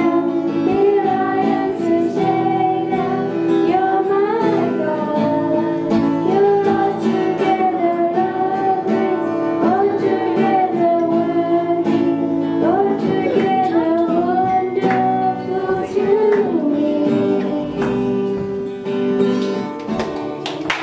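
A girl singing a solo melody, accompanied by a strummed acoustic guitar.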